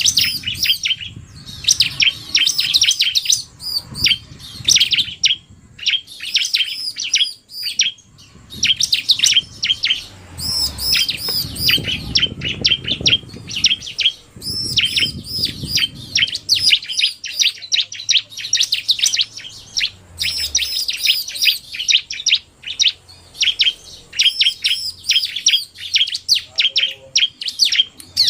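Bar-winged prinias (ciblek) singing: rapid, high-pitched chirping trills in quick repeated phrases with short gaps. An excited male's 'narung' song is mixed with a female's fast calls.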